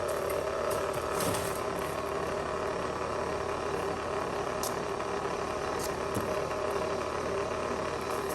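A steady mechanical hum with a few light clicks scattered through it.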